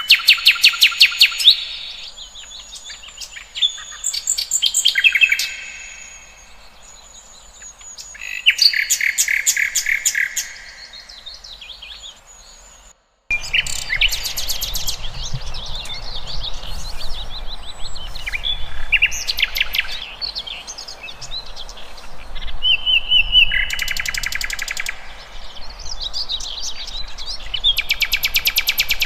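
Several songbirds singing and chirping: fast trills, rapid runs of repeated notes and held whistled notes, overlapping one another. About halfway through there is a short break before the singing resumes.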